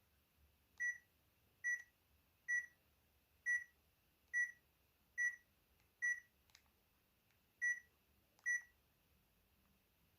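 Short, high electronic beeps from a Lobster 700TV (HTC Monet) mobile phone, nine in all, about one a second, with one skipped near the end.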